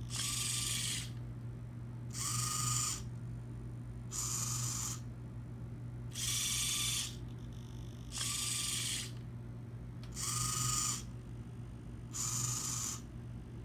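Hobby servo motors of a two-link robot arm whirring as the arm swings between positions. Seven short buzzy whirs, each under a second and about every two seconds, over a steady low hum.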